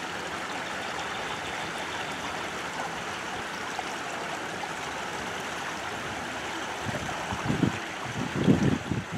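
Steady rush of water flowing through concrete hatchery raceways and spilling over their screens. From about seven seconds in, gusts of wind buffet the microphone with low rumbles, loudest near the end.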